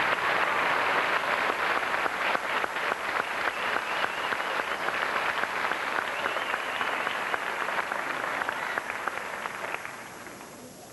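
Large audience applauding, a dense patter of many hands clapping that dies away near the end.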